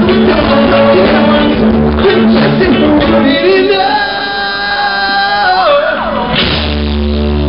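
A live reggae-rock band with horns, electric guitars and drums plays loudly. About three seconds in, the band thins and a voice holds one long note that slides down. Near the end the full band crashes back in.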